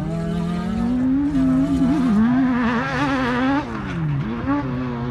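Off-road rally buggy's engine revving hard under load, its pitch wavering quickly up and down and loudest around the middle, then dropping briefly about four seconds in as the driver lifts or shifts, over a steady lower engine drone.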